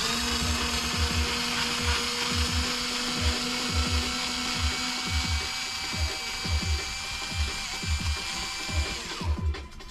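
A steady mechanical whirr with several steady tones, cutting off suddenly about nine seconds in, over background music with a steady beat.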